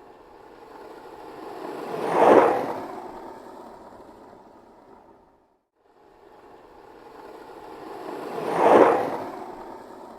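Skateboard wheels rolling past twice. Each time the rumble builds for about two seconds, peaks, and fades away, with a brief silence between the two passes.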